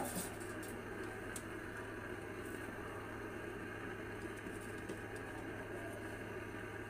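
A glass pan lid with a metal rim is set onto a wide cooking pan, with a few light clinks in the first second and a half. After that there is a steady hum and hiss from the stove under the covered pot of duck curry, which has just been topped up with water to simmer.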